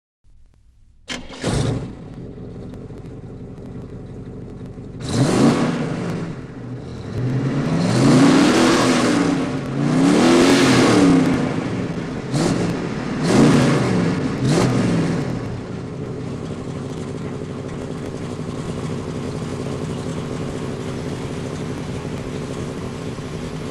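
1958 Cadillac 365 cubic-inch V8 starting about a second in, then revved up and down about five times before settling to a steady idle.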